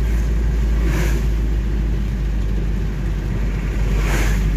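Steady low rumble of a vehicle travelling along a road, with two brief hissing swooshes, about a second in and near the end.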